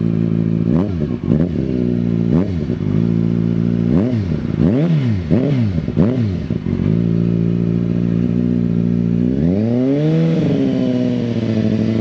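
Kawasaki ZX-6R inline-four sport bike engine with an Akrapovic exhaust idling and revved in about seven quick throttle blips, each rising and falling back to idle. After a few seconds of steady idle, the revs are raised and held, wavering up and down near the end.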